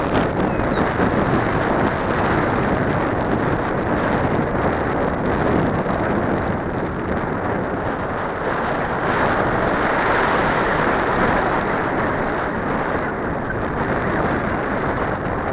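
Strong wind buffeting the microphone of a wing-mounted action camera: a loud, steady rushing noise with no clear motor tone above it.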